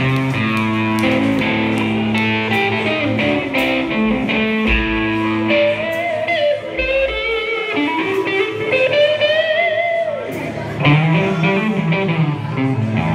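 Live rock band playing: a lead line on a black semi-hollow-body electric guitar, with wavering and bent notes in the middle stretch, over held bass notes and drums.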